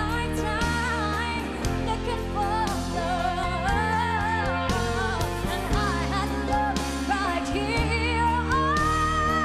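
A woman singing a slow pop ballad into a handheld microphone over instrumental accompaniment with a steady beat. Near the end she holds a long note.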